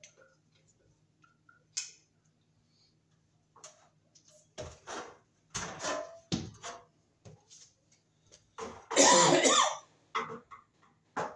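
Small clicks of a screwdriver working on ceiling-fan blade screws, then knocks and clatter as a stepladder is climbed down and handled, with a loud rasping noise about nine seconds in.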